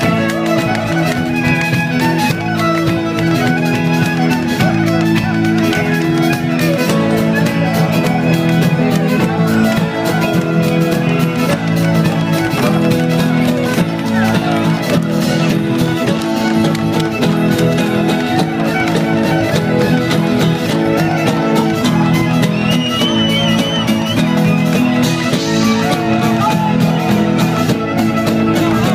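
Live folk-rock band playing a loud, continuous pizzica-style improvisation, with a violin lead over guitar and fast percussion.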